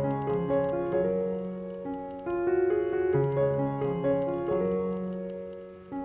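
Piano music: a slow melody over held chords.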